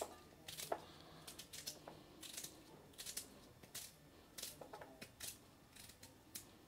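Small knife cutting a raw potato held in the hand into little cubes, the pieces dropping onto a steel plate: faint, irregular crisp clicks, about two a second.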